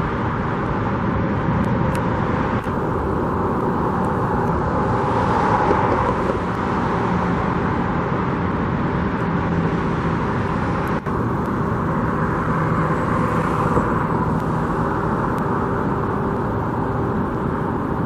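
Steady road traffic: a continuous wash of passing vehicles with a low engine hum.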